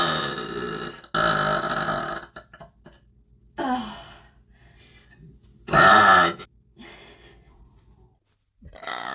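A woman belching out loud repeatedly: a long burp trailing off in the first second, then four more separate burps, the loudest a little past halfway, the last beginning near the end.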